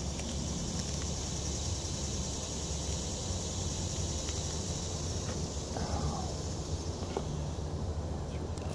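Steady high-pitched drone of insects, fading near the end, over a low rumble, with a few faint small clicks as an eggshell is picked off by hand.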